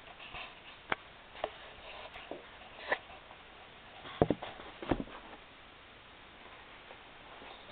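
Handling noises at close range: a string of separate clicks and knocks, the two loudest and heaviest about four and five seconds in.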